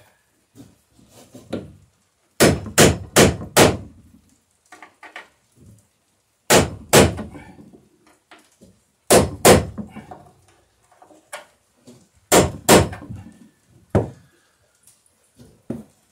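Hammer driving ring nails home through a wooden plank into a plywood boat bottom: four quick sharp blows, then pairs of blows every few seconds and a single blow near the end, with lighter taps in between.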